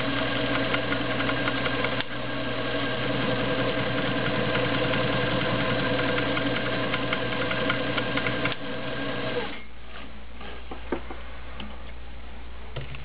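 Montgomery Ward Signature URR 292 zigzag sewing machine running steadily, its motor humming and needle mechanism chattering as it stitches a cam-driven triangle pattern. It stops about three-quarters of the way through, leaving a few light clicks.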